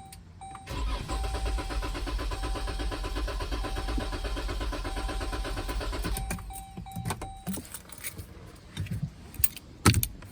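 A 2013 Jeep Grand Cherokee's 3.6-litre V6 is cranked by the starter for about five seconds with a steady rhythmic chug, but it never catches: it cranks but won't start because of a failed fuel pump relay. A steady warning chime sounds with it, and a few knocks and thumps follow after the cranking stops.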